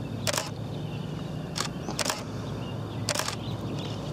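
A single-lens reflex camera's shutter firing four times at uneven intervals, each a sharp click, over a steady low hum.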